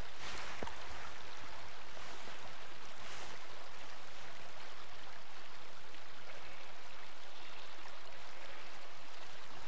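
Steady rush of a flowing river, an even hiss of moving water.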